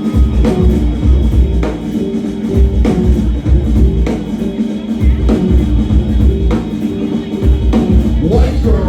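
Live band playing an instrumental passage: a drum kit keeping a steady beat of roughly two hits a second over a deep, pulsing bass line.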